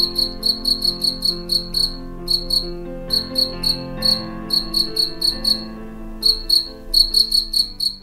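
Adult male European field cricket (Gryllus campestris) stridulating its calling song: short, high chirps at about four a second, in runs broken by brief pauses. The song marks the male as sexually mature. Soft background music plays underneath.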